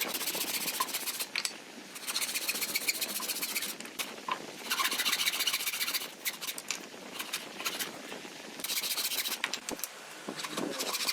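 Hand tool rubbing over wood in about five long strokes, each one to two seconds long, with short pauses between them.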